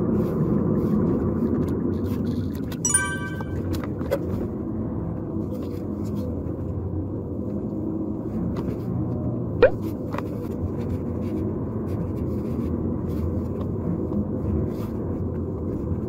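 Car driving, heard from inside the cabin: steady engine and tyre road noise. A brief high tone sounds about three seconds in, and a short rising squeak about ten seconds in.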